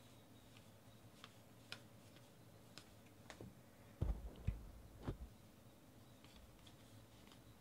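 Baseball trading cards being flipped and shuffled by hand: light card clicks and flicks, then a few louder soft thumps about four to five seconds in.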